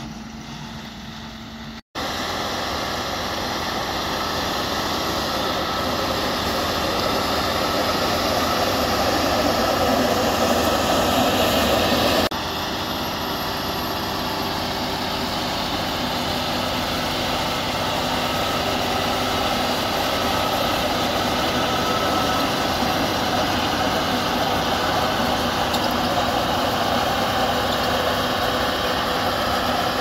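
John Deere tractor's diesel engine working steadily as it pulls a power harrow and seed drill combination through ploughed soil, a continuous mechanical noise. It cuts out for an instant about two seconds in.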